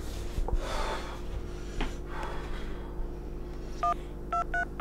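A man breathing heavily, then four short touch-tone keypad beeps near the end as a number is dialed on a cell phone.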